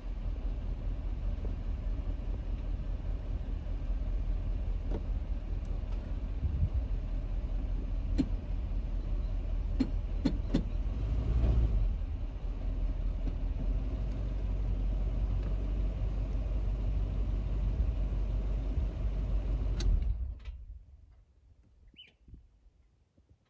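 Steady low rumble that dies away about twenty seconds in, leaving near quiet.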